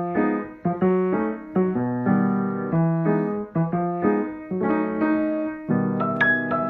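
Background piano music: a melody of struck notes over held chords at a gentle, even pace.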